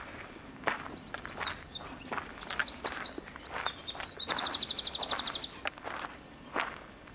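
A songbird singing a varied phrase of high chirps that ends in a fast, even trill about a second long. Underneath are footsteps on a gravel path.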